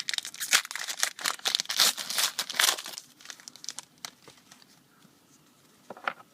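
The foil wrapper of a Panini Brilliance basketball card pack being torn open and crinkled: dense crackling for about three seconds, then only a few faint ticks.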